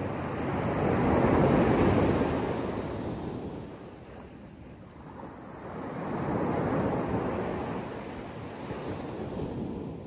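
Gentle surf on a sandy beach: small waves breaking and washing up the sand, swelling twice about five seconds apart.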